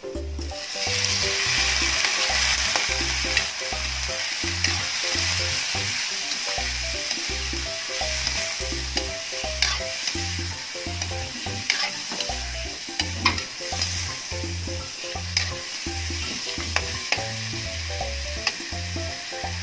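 Chicken pieces with garlic and onion sizzling in a hot wok over a gas flame, stirred with a spatula that scrapes and clicks against the pan. The sizzle swells about half a second in and keeps on steadily.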